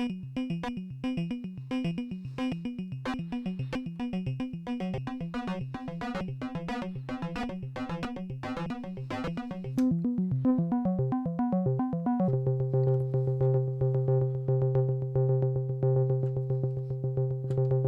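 Buchla Music Easel synthesizer playing a fast pulsed rhythm of gated notes, the pitch stepping under a sequencer and the timbre shifting with a mixed control voltage. About two-thirds of the way through, the notes settle onto one held low pitch with bright overtones, still rippling quickly.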